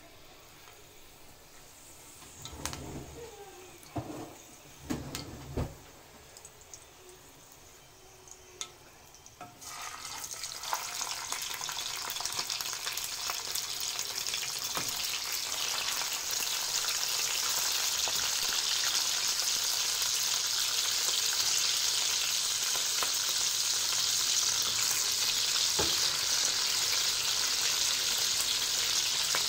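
Mackerel pieces frying in hot oil with garlic in a non-stick pan. A few knocks come first, then about ten seconds in a sizzle starts and grows into a steady, loud sizzle as more fish goes in.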